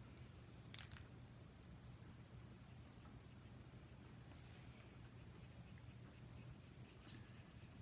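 Near silence: faint strokes of a Wink of Stella glitter brush pen over cardstock, over a low steady hum of room tone, with a small click about three-quarters of a second in.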